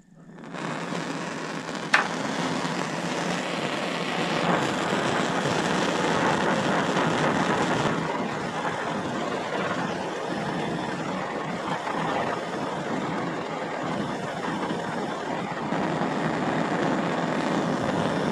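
Hand-held gas blowtorch fed from a Campingaz bottle, burning with a steady hiss as its blue flame heats a copper tube to anneal it. There is a sharp click about two seconds in.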